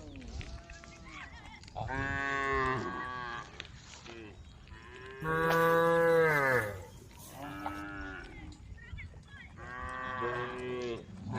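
Cattle mooing: about four long moos one after another, the loudest about five seconds in, sliding down in pitch as it ends.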